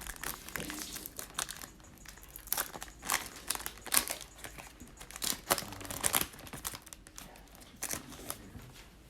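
Foil wrapper of a basketball trading-card pack crinkling and tearing as it is opened by hand, with irregular crackles and rustles throughout.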